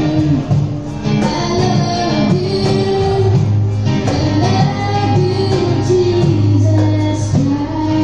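Women's vocal group singing together in harmony, with acoustic guitar accompaniment.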